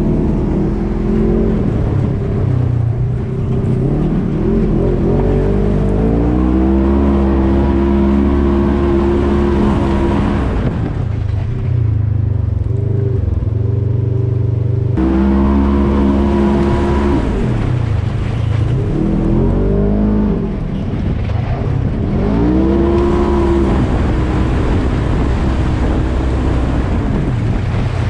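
Polaris RZR side-by-side's engine running hard under load, its pitch climbing, holding and dropping back several times as the throttle is worked. It drops to a lower, steadier note for a few seconds around the middle.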